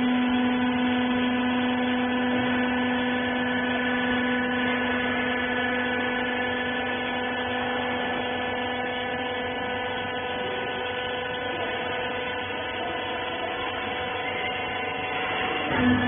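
Wiper baler's electric motor and hydraulic pump running: a steady hum made of several tones over a noisy whir, its deepest tone fading a second or two in and coming back near the end.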